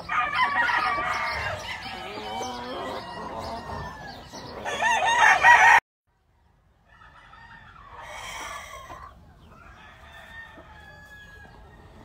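Gamefowl roosters crowing, several calls overlapping, the loudest crow just before the sound cuts off abruptly about halfway through. After about a second of silence, fainter crowing and clucking follow.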